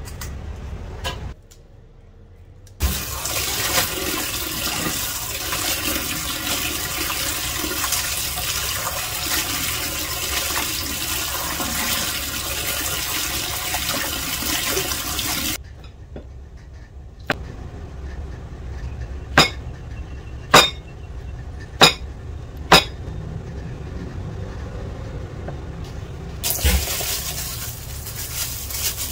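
Tap water running hard into a stainless steel basin of leafy greens as hands wash the leaves, for about thirteen seconds before the water stops. Then a few sharp knocks, and plastic bag crinkling near the end.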